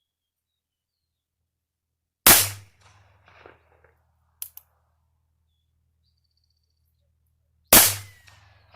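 Two .22 LR pistol shots from a Bond Arms Roughneck derringer fitted with a .22 LR barrel, each a sharp crack with a short echoing tail, about five and a half seconds apart. Two quick small clicks come between the shots.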